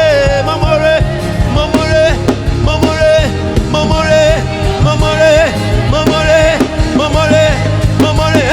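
Live Yoruba gospel praise music: a voice singing long, wavering held notes over a band with a steady bass and drum beat.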